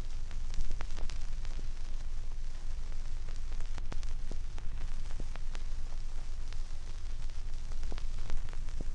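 Surface noise of a 9-inch, 16⅔ rpm Seeburg background-music vinyl record playing the blank groove between two songs. A steady low rumble and hiss are scattered with crackles and sharp pops.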